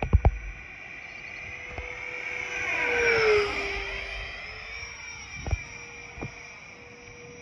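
Freewing Stinger 90 mm electric ducted-fan RC jet making a low pass: the fan's steady whine swells about three seconds in and drops in pitch as it goes by, then fades. Sharp thumps near the start and two more later.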